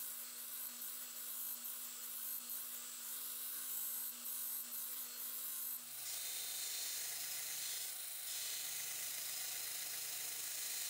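Belt grinder with a surface-grinding attachment running, its abrasive belt grinding a Damascus steel billet flat with a steady high hiss. The sound changes about six seconds in.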